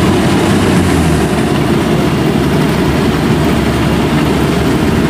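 Engine of farm machinery close by running steadily, a loud low hum with no change in pitch.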